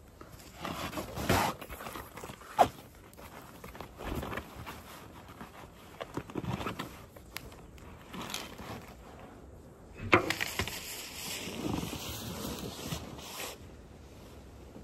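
Handling noises of a woven straw basket bag being pulled onto a lap and rummaged for a phone: irregular rustling and knocks, with a sharp click about two and a half seconds in, and a knock about ten seconds in followed by a few seconds of rustling.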